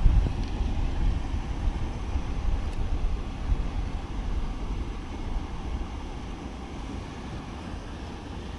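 Low, uneven rumble on the microphone, easing off toward the end, with a couple of faint ticks.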